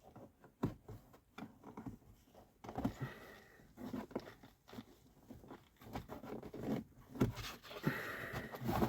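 Plastic A-pillar trim of a Seat Alhambra being pulled away from the pillar by hand: a scattered run of clicks, creaks and scrapes as a retaining clip resists, with a louder scraping stretch near the end.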